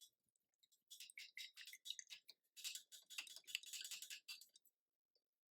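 Paintbrush being rinsed in a cup of water: faint, quick clicks and swishes as the brush is stirred in the water, from about a second in until shortly before the end.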